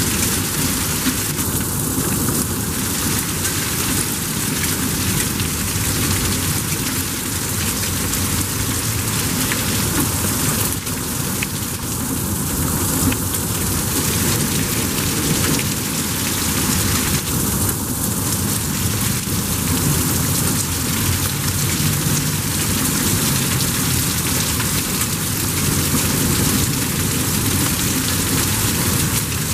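Torrential thunderstorm rain pouring down steadily, a constant hiss of heavy rain on roofs, pavement and vehicles.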